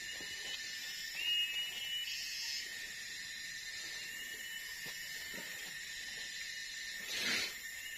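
Tropical forest ambience: a steady, high-pitched insect drone with short whistled calls about one to two seconds in, and a brief whoosh about seven seconds in.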